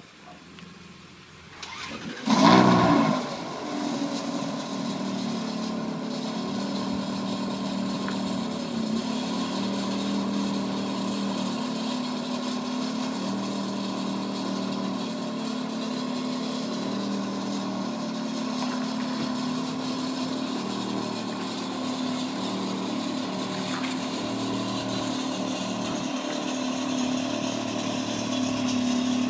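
A car engine starts up about two seconds in with a brief loud flare of revs, then settles into a steady idle.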